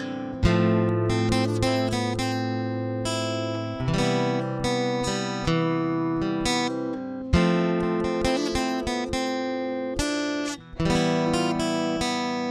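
Tele-shaped Kazuki electro-acoustic guitar playing strummed chords, heard as its pickup signal recorded straight through a Momix Joyo portable audio interface, with a short break in the playing near the end.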